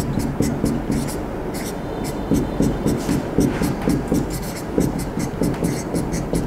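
Pen writing on the glass screen of a smart LED digital board: a quick, irregular run of short taps and scratches as a word is handwritten.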